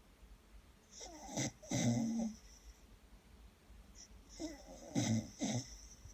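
Dog snoring: two snores about three and a half seconds apart, each made of two or three short pulses.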